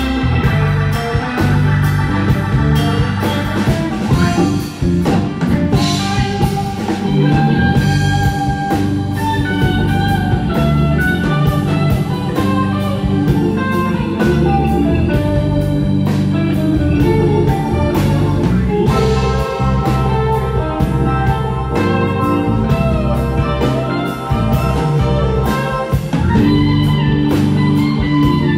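Live band playing an instrumental stretch with no singing: electric guitar, electric bass, drums and keyboards, with a steady beat and held guitar notes over the top.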